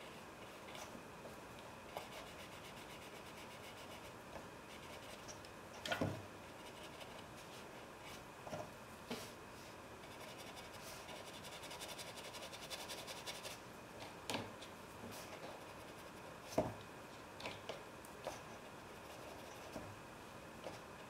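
Flat paintbrush rubbing and scrubbing on watercolour paper, a faint dry scraping with quicker back-and-forth strokes around the middle. A few sharp knocks stand out, the loudest about six seconds in and again about two-thirds of the way through.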